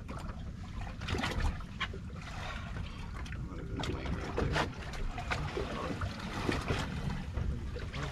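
Wind rumbling on the microphone and small waves slapping against the hull of a small fishing boat at sea, with scattered knocks and clicks.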